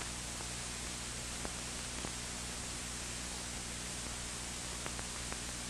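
Steady hiss with a low hum and a few faint, scattered clicks: the background noise of an old film soundtrack with no speech or music on it.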